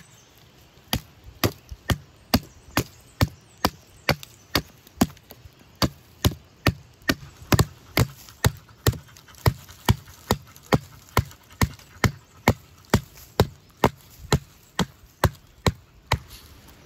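A machete hacking at the base of a thin tree trunk, one sharp chop after another at about two a second, starting about a second in and stopping near the end.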